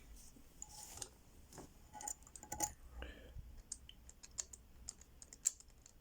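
Faint, irregular clicks and ticks of an Abus 158CS/65 combination padlock's number wheels being turned by hand.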